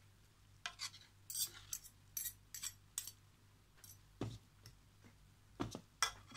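Stainless spoons and forks clinking and scraping against a metal pot as noodles and vegetables are stirred: about a dozen irregular clinks, two of them with a duller knock.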